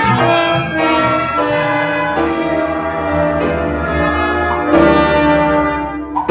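Wind band playing loud, brass-heavy chords during a rehearsal. The notes change quickly at first and then settle into held chords, with a louder accent about five seconds in.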